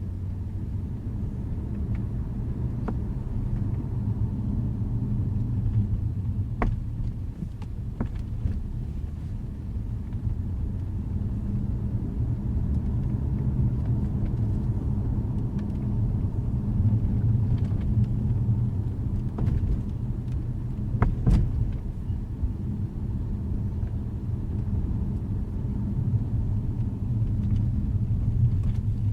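2012 Jaguar XJ running with a steady low rumble, and a few short clicks or knocks scattered through it, the loudest about two-thirds of the way in. The car is being checked for a popping and rattling noise after a dealership repair.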